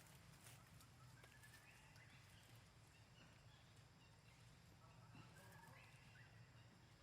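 Near silence, with faint high chirping animal calls in two short runs over a low steady hum.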